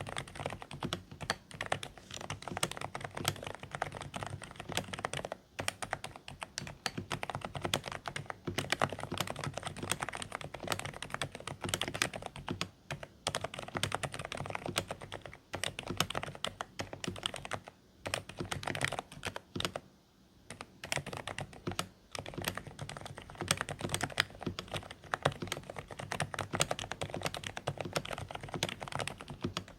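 Continuous typing on a Dareu A104 Pro mechanical keyboard with silent (low-noise) beige switches: quiet, slightly muffled keystrokes, with a brief lull about twenty seconds in.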